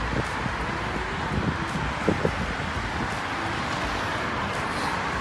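Steady city road traffic noise, a continuous wash of passing vehicles, with a couple of brief clicks about two seconds in.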